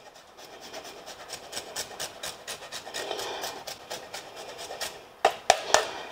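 A block of Parmesan rubbed back and forth over a flat handheld grater in quick, even rasping strokes. A few louder, sharper taps come near the end.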